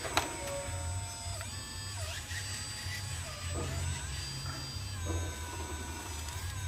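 The small electric motors of a remote-control toy excavator whir as its arm, bucket and turntable move, stopping and starting every second or so. Near the start, a brief clatter of dirt drops from the bucket into a plastic toy dump truck bed.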